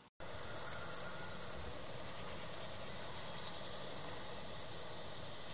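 Steady outdoor background hiss with a faint, rapid, high-pitched ticking that stops about a second and a half in and picks up again near the three-second mark.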